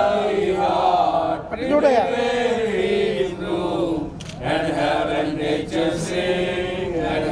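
A group of people singing together, holding and sliding between long notes.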